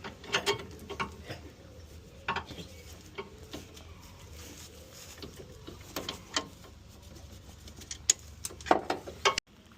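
Scattered clicks and light metallic taps of hand tools working the lower nut of a car's anti-roll bar drop link, over a faint steady low hum.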